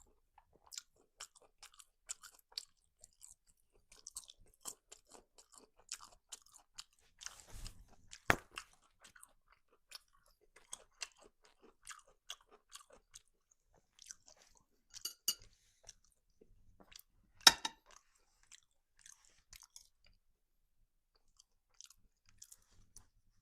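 A person chewing and crunching food, a cutlet with french fries, in many small irregular crackles and smacks. Twice a much louder sharp click or knock stands out.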